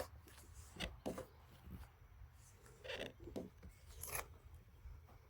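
A few faint, scattered scrapes and taps, each brief, with stretches of quiet between them.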